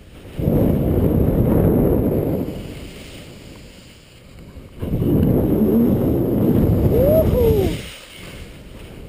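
Wind rushing over the microphone and skis sliding through snow while skiing downhill, in two long swells of about three seconds each with a lull between.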